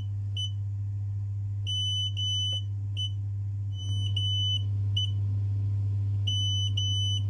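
Xiaomi M365 electric scooter's warning beeper sounding its error 21 code, two long beeps and one short beep, repeated about every two seconds: the signal for a battery communication error. A steady low hum runs underneath.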